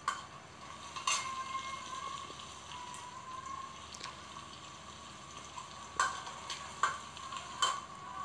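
Sliced onions and slit green chillies sizzling in hot oil in a pan. A steel ladle stirs them and clicks against the pan about five times.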